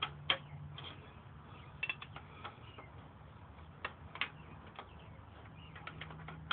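Hand wrench on a motorcycle's highway-bar bolt, worked in short strokes: scattered, irregular metallic clicks and clinks as the tool takes up and is repositioned, over a faint low hum.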